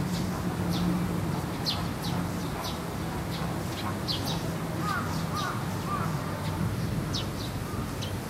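Birds calling: short high chirps repeat throughout, and three lower calls come in close succession about five seconds in, over a steady low murmur of background noise.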